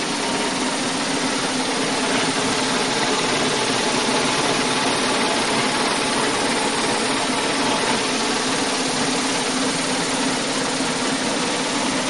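Forced-air furnace blower fan running with a steady, excessive vibration noise. The cause is the furnace's owner's manual, sucked into the blower fan, which the inspector had first guessed was a blower bearing about shot.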